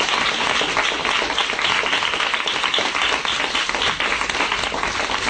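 Audience applauding: many people clapping densely and steadily.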